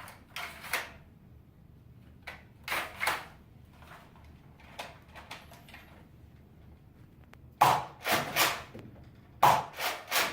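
Nerf Rival Artemis XVII-3000 pump-action foam-ball blaster being pumped and fired: a string of sharp plastic clacks, single or in pairs at first, with the loudest in quick clusters over the last few seconds.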